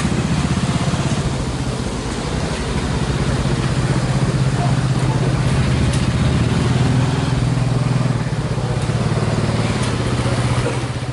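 A small engine running steadily close by, with a fast, even firing pulse; it dies away just at the end.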